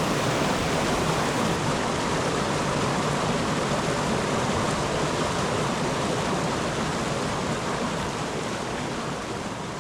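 Water rushing at the Silent Pool's old dam: a steady, loud rush of falling and flowing water, easing slightly near the end.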